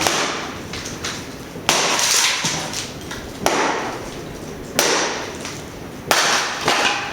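Small hand-forged one-handed splitting maul chopping into rotten firewood: five sharp blows about a second and a half apart, each trailing off briefly.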